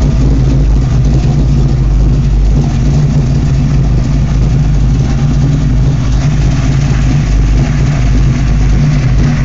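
Chevrolet C10 pickup's 454 big-block V8 idling steadily, with a deep, even hum.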